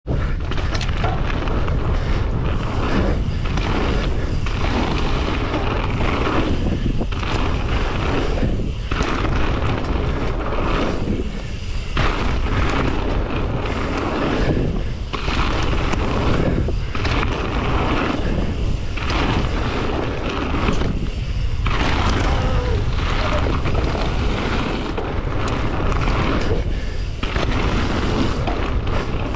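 Wind buffeting the bike camera's microphone as a mountain bike rolls fast over loose gravel, a loud steady rush with a deep rumble that dips briefly every couple of seconds.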